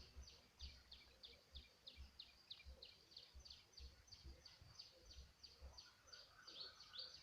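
Faint, rapid series of short, high chirps, each sweeping downward, about three a second, from a bird.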